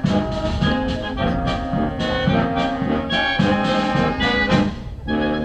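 Brass band playing live: trumpets and trombones carrying the tune over a steady drum beat, as accompaniment to a majorette routine.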